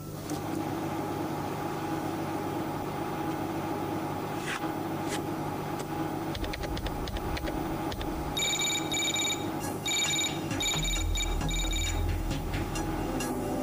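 Computer terminal powering up with a steady electronic hum, then keyboard keystrokes clicking, and from about eight seconds in rapid high electronic beeps in short repeated groups as a password is entered and verified. A low rumble comes in about two-thirds of the way through.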